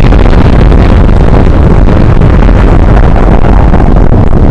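A very loud, distorted rumbling noise that is heaviest in the bass and holds steady with no tune or words, replacing the commercial jingle.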